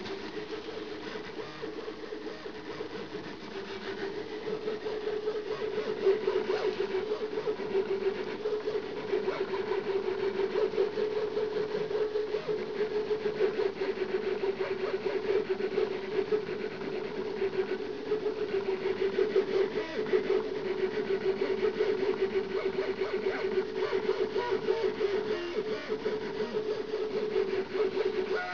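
Stepper motors of a home-built CNC machine driving it in pen-plotter mode: a steady mid-pitched whine with a rapid fluttering texture, a little louder from about five seconds in.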